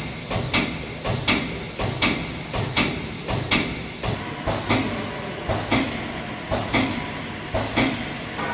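Valve test bench's high-pressure pump running, stroking with a sharp clack-and-hiss just under twice a second over a steady low hum as it pressurises the valve under test.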